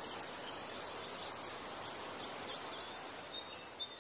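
Quiet outdoor ambience: a steady background hiss with a few faint bird chirps, starting to fade out near the end.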